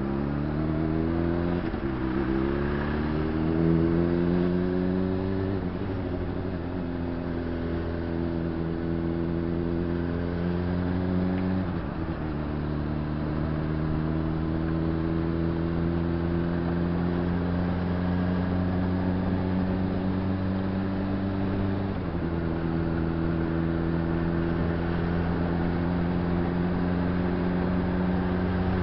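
Honda CBR600RR's inline-four engine under way, pulling up through the gears. Its note climbs and breaks briefly at upshifts about two, six, twelve and twenty-two seconds in, then settles to a steady cruise.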